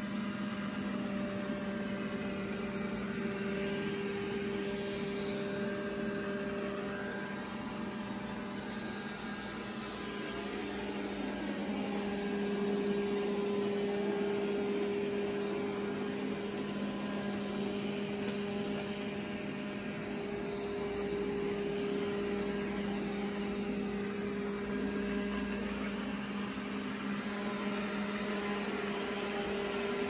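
Roborock S5 robot vacuum running: its suction fan and brushes give a steady hum with a constant drone, dipping slightly in level about ten seconds in.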